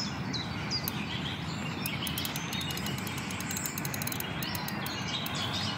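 Small birds chirping, short falling calls repeated over a steady outdoor background hiss, with a run of faint, quick high clicks in the middle.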